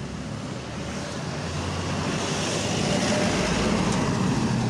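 Vehicle engine running under way, with road and wind noise, growing louder about two seconds in.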